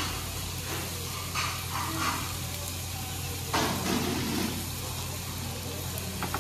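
Steady sizzling hiss of meat grilling at a Korean barbecue restaurant, with a few brief muffled room noises about one and a half and three and a half seconds in.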